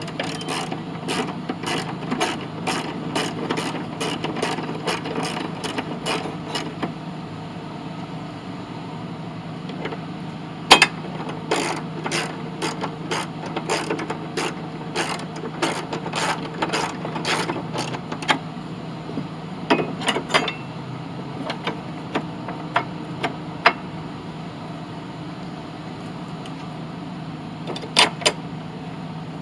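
Socket ratchet clicking in quick runs as 12 mm bolts are turned in, with pauses and one sharper knock about a third of the way through. A steady low hum runs underneath.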